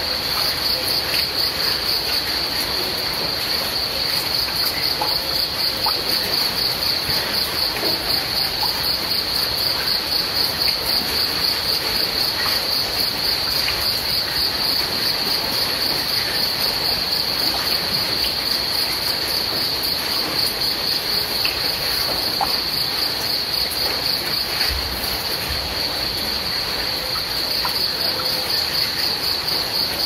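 Crickets chirping in a steady, high-pitched, rapidly pulsing trill that never lets up, over a steady background hiss.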